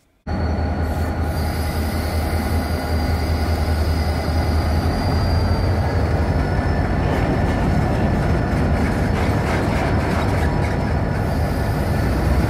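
Diesel freight locomotives rolling by with their train: a deep, steady engine drone over a rumbling roll, with thin, high wheel squeal from the rails.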